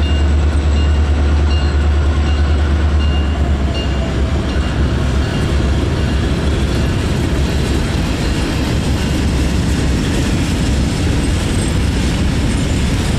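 Freight train cars rolling past on the rails: a continuous clatter and rumble of steel wheels on track. A deep low rumble under it eases about four seconds in.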